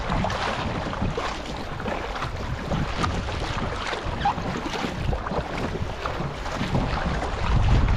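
Double-bladed paddle strokes splashing in choppy sea water as a sit-on-top kayak is paddled along, with water washing past the hull. Wind buffets the microphone with a low rumble.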